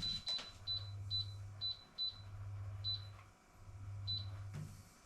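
Breville air fryer's control panel beeping as its timer is set: about seven short, high beeps at uneven intervals, with a low steady hum underneath.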